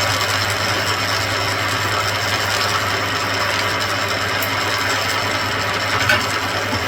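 Mill drill running steadily with a tapping head fitted, driving a spiral tap to thread holes in steel: an even motor hum with a mechanical whirr over it.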